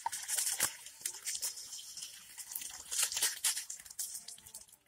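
Water gushing out of the mouth of a clay pot fish trap and splashing into a wicker basket, with uneven surges and short splashes.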